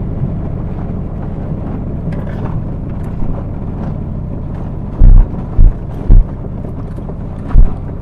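Car driving, a steady low road and engine rumble heard inside the cabin, with four heavy low thumps in the second half.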